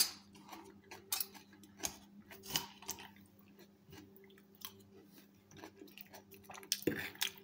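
A fork working through a lettuce salad on a ceramic plate, mixed with soft chewing: scattered small clicks and crackles, with a louder clink of the fork about seven seconds in. A faint steady hum runs underneath.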